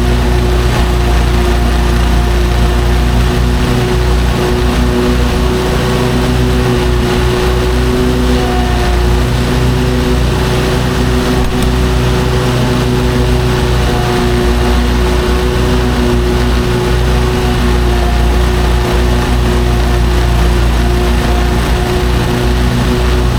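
Lawn mower engine running steadily while mowing: a loud, even drone with a constant pitch.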